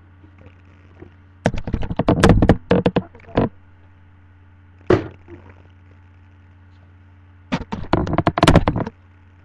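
Clatter and knocks of objects being handled and set down on a tabletop close to the microphone, in three bouts: a burst of rapid knocks, a single knock a little later, and another burst near the end.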